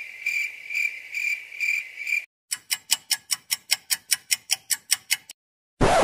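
Cricket chirping sound effect: a high, steady trill pulsing about twice a second for the first two seconds. Then comes a rapid run of sharp clicks, about six a second, for nearly three seconds, and a short record scratch near the end.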